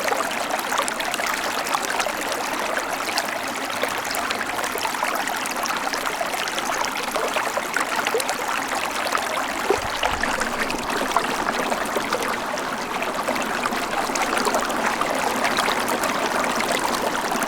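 Steady sound of running water, like a trickling stream, played as a nature-sound ringtone of the Itel S25 Ultra phone.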